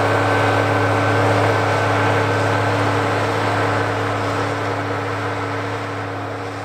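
Ford 9700 tractor's diesel engine running steadily under load while pulling a five-bottom moldboard plow through sod. The hum slowly fades as the tractor moves away.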